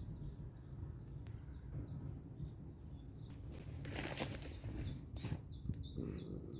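A songbird singing outdoors, series of quick high notes that each sweep downward, heard at the start and again from about five seconds in. About four seconds in comes a short rustling, breathy burst, the loudest sound, over a steady low background rumble.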